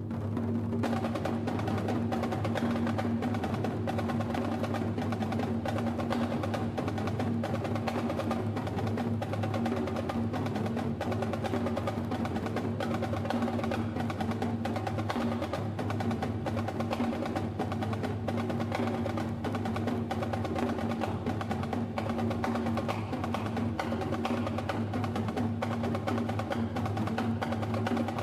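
A police wind band playing live, with drums and other percussion striking a fast, steady beat over held low notes.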